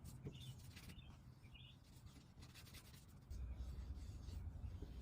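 Faint rubbing of fingers spreading mineral oil over a wooden cutting board. A low hum comes in about three seconds in.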